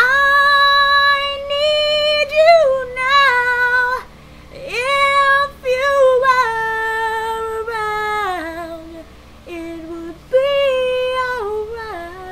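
A woman singing high held notes without clear words, in several phrases. The pitch steps mostly downward within each phrase, with short breaks between them.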